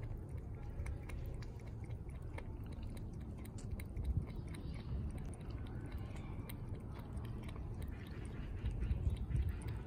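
A cat lapping water from a plastic tray: a quick, irregular run of small wet clicks, with a low rumble underneath.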